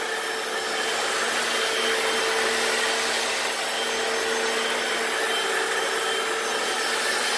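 Hoover FloorMate wet floor cleaner running steadily as it scrubs a concrete floor: its suction motor whirring with a constant hum while the brushes spin and pick up the cleaning solution.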